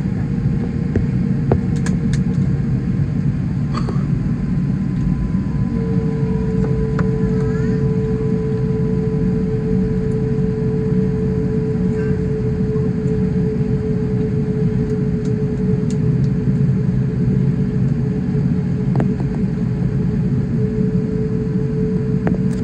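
Cabin noise of a Qantas Airbus A380 taxiing, its Rolls-Royce Trent 900 engines at low thrust: a steady, loud low rumble of engines and rolling airframe. A steady humming tone runs over it, dropping out for about two seconds early on and then returning.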